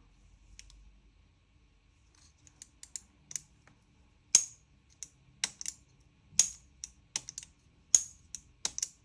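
Sharp clicks, a dozen or so at uneven intervals beginning a few seconds in, from the trigger mechanism of a Krytac Kriss Vector gas-blowback airsoft gun's trigger housing being worked by hand. This tests the newly installed Bow Master CNC aluminium trigger and its spring.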